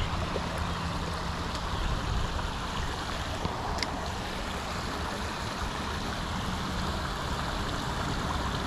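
Small creek water running steadily, with a faint low hum underneath and a single click about four seconds in.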